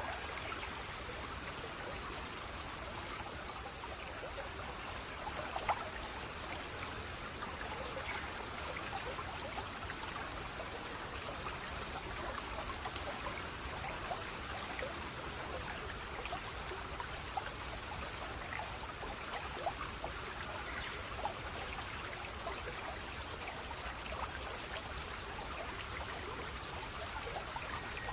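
Water of a small stream trickling steadily, with many small drips and splashes running through it.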